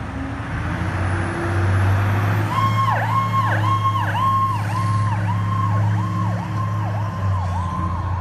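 Fire apparatus pulling out on a call: a truck's diesel engine runs low and steady, and about two and a half seconds in an electronic siren starts, holding a high tone that dips in pitch and comes back about twice a second.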